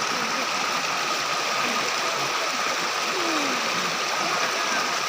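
Waterfall and stream water rushing steadily, with a thin steady high note above it.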